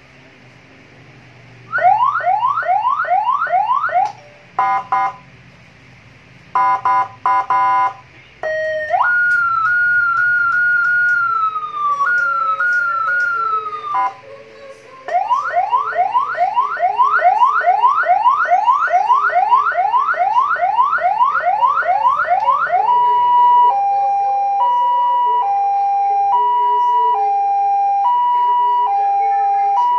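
Electronic alarm siren cycling through its tones. It gives fast repeated rising whoops, then bursts of rapid beeps, then a long held tone that steps down, then another long run of rising whoops, and from about two-thirds of the way in it settles into a steady high-low two-note alternation.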